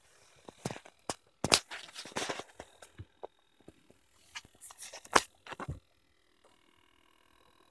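Handling noise: irregular clicks, knocks and crunchy rustling, loudest about a second and a half in and again near five seconds. After that comes a faint steady hum with a few thin steady tones.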